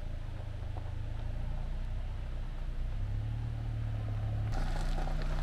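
Car engine running steadily at a low idle. About four and a half seconds in, the engine note shifts and crunching on gravel begins.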